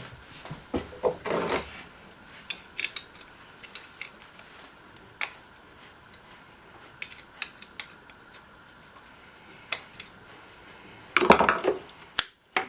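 Scattered metal clicks and clinks of hand tools being handled while a lawnmower's rubber fuel line is clamped shut, with a louder clatter near the end.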